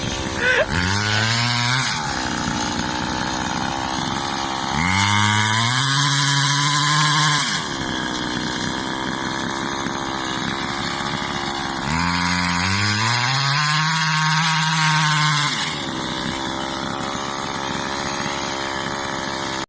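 Small engine taken from a grass cutter, powering a homemade vehicle, idling and revved up three times. Each time the pitch rises, holds for a second or a few, then drops back to idle.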